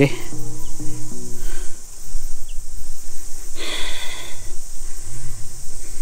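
Steady high-pitched insect chorus, with soft background music notes underneath in the first second or so and a brief higher sound a little past halfway.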